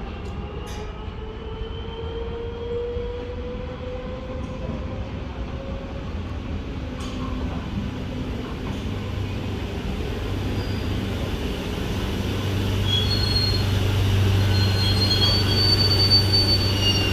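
Madrid Metro electric trains: a motor whine rises steadily in pitch through the first several seconds. Then a series 2000B train pulls in alongside with a rumble and hum that grow louder, and high-pitched wheel squeals come in the last few seconds.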